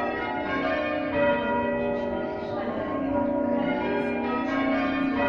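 Church bells ringing, one bell struck after another in a continuous sequence, their tones overlapping and ringing on.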